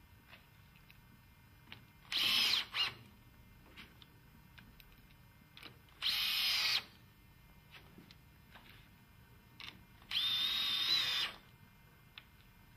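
Cordless drill-driver driving screws to fasten a window fitting strip to a plastic sash: three short whirring runs about four seconds apart, the last one the longest, with faint clicks in between.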